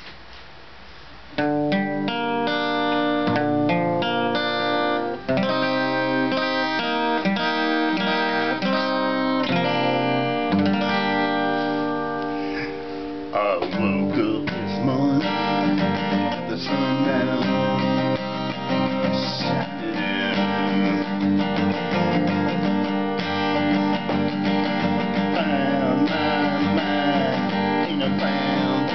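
Acoustic guitar being played, plucked and strummed notes starting about a second and a half in and carrying on steadily.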